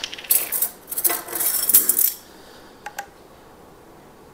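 A ring of metal measuring spoons jangling and clinking for about two seconds as they are picked up, then a single light click about three seconds in.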